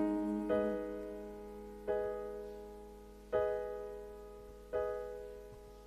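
Keyboard playing slow piano-like chords, one struck roughly every second and a half, each ringing and fading away over a held low note: an instrumental gap between sung lines of a sholawat.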